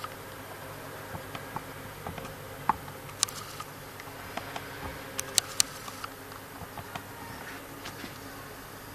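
Steady faint hiss with scattered sharp little clicks and taps, a cluster of the loudest in the middle: handling noise from a handheld camera as it is moved.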